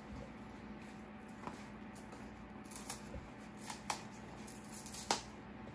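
Elephant ear leaf stalk being peeled by hand: faint crisp snaps and rips as strips of skin are torn off the stem, a few sharp ones scattered through, the loudest near the end.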